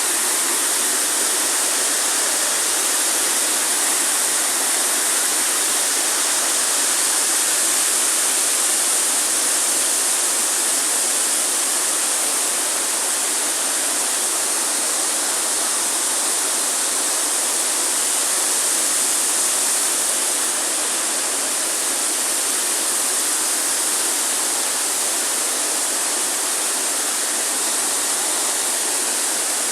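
Waterfall: falling water making a steady, even rush that doesn't change.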